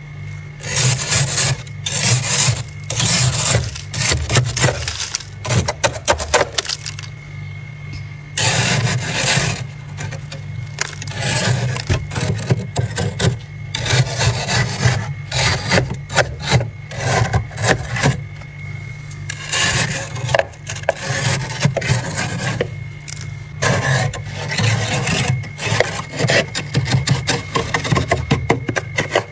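Thick freezer frost being scraped off the walls of a freezer compartment with a flat scraper, in runs of quick rasping strokes broken by short pauses, over a steady low hum.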